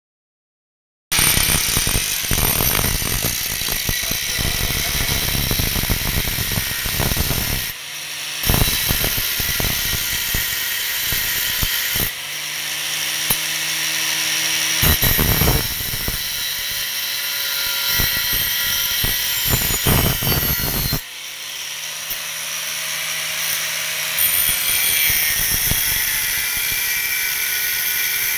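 Angle grinder with a thin cut-off disc cutting steel plate: a loud, continuous high grinding hiss that starts about a second in. Now and then the cut eases and the motor's steady hum comes through before the disc bites again.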